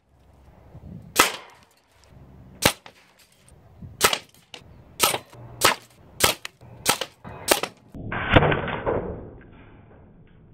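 FX Crown PCP air rifle shooting nine times in a quick string, the shots coming faster toward the end. After the last shot, about eight seconds in, there is a rushing noise lasting about a second.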